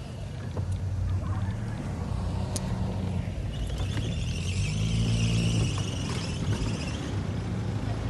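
Engine of a four-wheel-drive vehicle running under load, climbing a steep hill in low-range gear; the drone swells for a moment about five seconds in, with a higher hiss over it in the middle.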